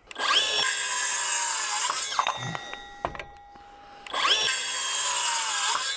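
Milwaukee M12 FUEL 5-3/8" compact cordless circular saw cutting a board twice. Each time the motor spins up with a rising whine, runs for about two seconds, and its electric brake stops the blade quickly with a falling whine.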